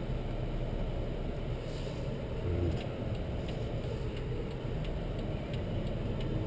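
Steady low rumble of a 2011 Chrysler 200's engine and tyres, heard from inside the cabin as the car rolls slowly, with a few faint light ticks.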